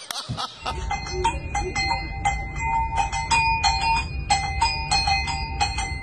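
Hanging metal bells struck by hand in quick, uneven succession, each strike ringing on at its own pitch so the tones overlap. A steady low rumble runs underneath.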